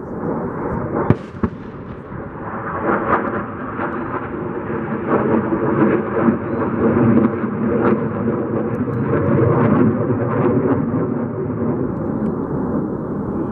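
F-16 fighter jets passing overhead: a loud jet engine roar, rough and crackling, that swells after the first couple of seconds. There is a single sharp knock about a second in.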